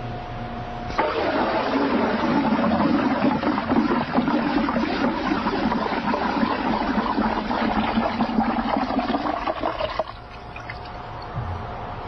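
Water in a barrel sloshing and swirling as a hand stirs it hard into a vortex. It starts about a second in and stops abruptly near the end.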